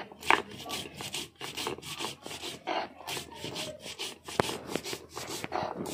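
Stone roller (batta) pushed back and forth over a chiselled sil grinding stone, crushing cumin seeds and garlic into a paste. It makes quick, repeated, gritty scraping strokes of stone on stone.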